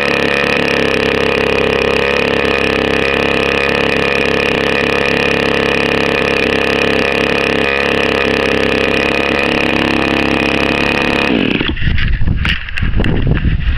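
RCGF 15cc single-cylinder two-stroke petrol model-aircraft engine, brand new, running steadily at a fixed speed with its propeller turning. About eleven seconds in it stops abruptly and spins down, leaving irregular low rumble and knocks.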